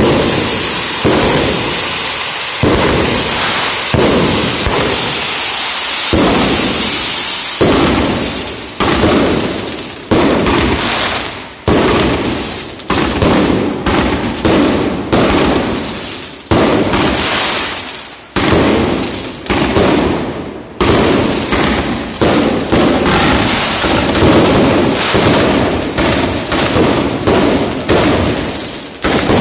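Fireworks display. Ground fountains give a dense hiss of sparks with bangs about every second or so. From about eight seconds in, aerial fireworks burst overhead in quick succession, about one bang a second, each trailing off before the next.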